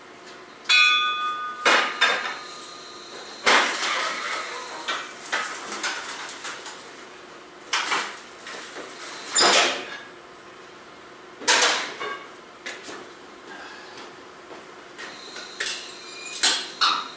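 Metal clanks and bangs at irregular intervals from unloading a pallet off a freight trailer at a loading dock. One clank about a second in rings briefly.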